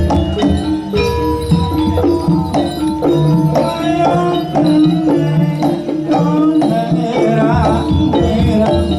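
Music with drums and percussion keeping a steady beat under a melodic line.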